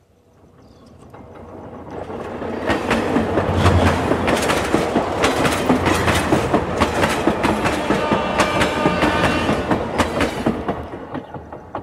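A train passing close by on the track: its sound builds up over the first few seconds, holds loud with a quick run of wheel clacks over the rail joints, then fades away near the end.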